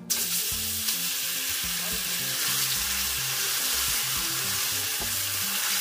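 Marinated chicken pieces hitting hot oil in a wok, breaking suddenly into a loud, steady sizzle as they fry and are stirred with a wooden spatula.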